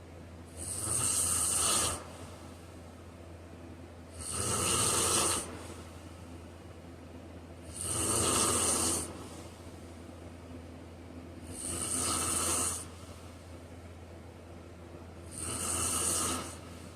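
A man snoring in his sleep: five snores, one about every three and a half to four seconds, each lasting about a second and a half, over a steady low hum.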